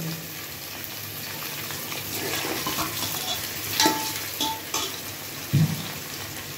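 Boiled mutton pieces and onions sizzling in hot oil in a pressure cooker, stirred with a metal spoon. The spoon scrapes the pot and knocks against it a few times in the second half.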